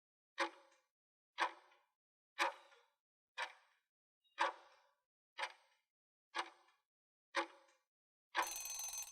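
Quiz countdown timer ticking once a second, eight ticks in all, then a short ringing end signal about eight and a half seconds in that marks time running out.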